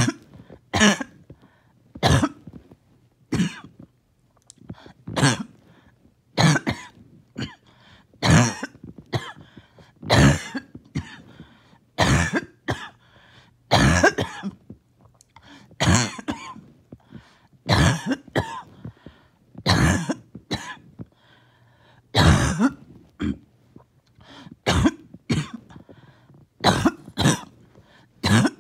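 A person in a coughing fit: harsh coughs and throat clearing, one about every second, struggling to bring up mucus that won't come up.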